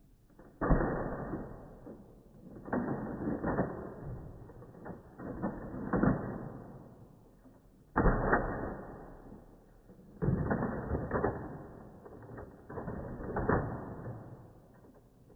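Nerf N-Strike Recon CS-6 spring-plunger dart blaster being primed and fired shot after shot, slowed down. It gives a run of deep, drawn-out mechanical clacks, each sharp at the start and dying away over about a second, roughly one every one to two seconds.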